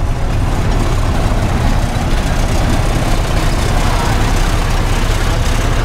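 Steady low rumble of small vehicle engines running close by, over even wind and rolling noise.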